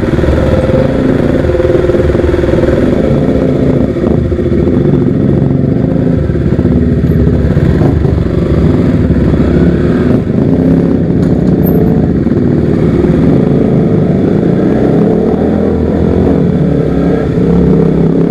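KTM RC sport bike's engine running while riding at low speed, its pitch rising and falling with the throttle.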